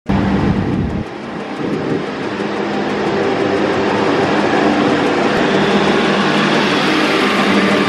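Endeavour-class diesel railcar passing close alongside the platform: a low hum for about the first second, then a steady rolling rush from the cars that grows louder and levels off.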